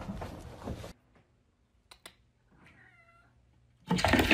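A cat meowing once, softly, in a short drawn-out call, after two faint clicks. Around it, a second of rustling noise at the start and a sudden burst of loud noise near the end.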